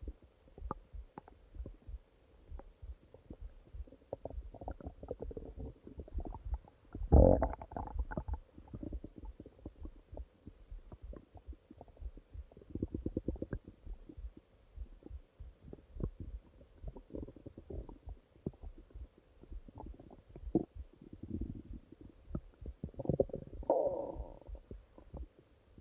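Human stomach growling and gurgling: an irregular run of low crackles and bubbling, with a loud gurgle about seven seconds in and another burst of gurgling near the end.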